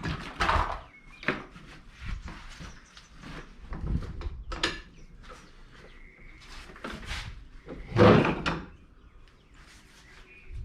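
Craftsman 54-inch steel mower deck being dragged out from under a lawn tractor: irregular metal scrapes, knocks and clanks, the loudest bang about eight seconds in.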